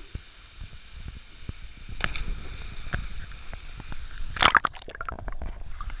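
Water sloshing and gurgling right at the microphone, as the camera rides at the surface of a pool, with a loud splash about four and a half seconds in.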